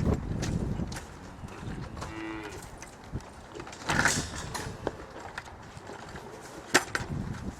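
Cattle in a dairy barn, one giving a short moo about two seconds in, with sharp clanks about four seconds in and again near the end.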